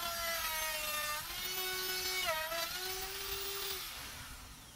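Corded electric router with a round-over bit cutting the edge of a scrap of wood: a steady high motor whine that dips in pitch twice as the bit takes the cut, then the motor is switched off about four seconds in and winds down.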